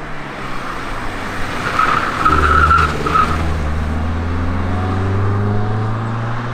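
Car driven hard through a bend: tyres squeal briefly about two seconds in, then the engine note rises steadily as it accelerates away.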